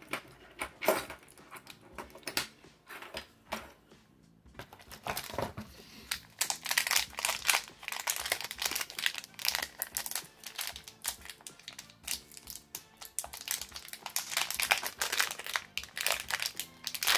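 Small nail-charm jars clicking as they are set down on a desk during the first few seconds, then from about six seconds in a thin plastic wrapper crinkling steadily as it is pulled off a jar.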